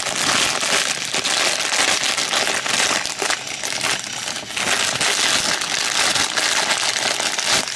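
Plastic blind-bag wrapper being crinkled and pulled open by hand, a dense continuous crackling that stops abruptly near the end.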